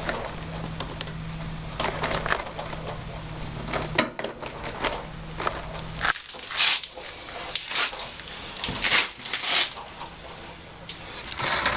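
A cricket chirping in a regular, evenly spaced rhythm, with a steady high insect tone beside it. Scattered sharp clicks and knocks of parts being handled come and go.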